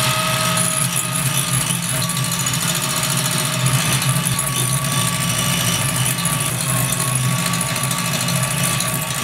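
Electric hand mixer running steadily at medium speed, its two beaters whisking foamy egg whites in a glass bowl as caster sugar is added for meringue. A constant motor hum with a steady whine above it.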